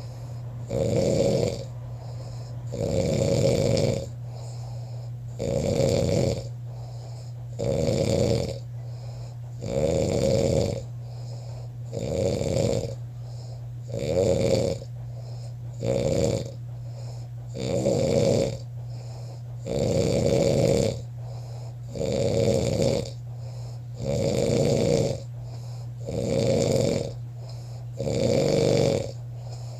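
A man snoring in a steady rhythm, one snore about every two seconds, each lasting about a second, over a steady low hum.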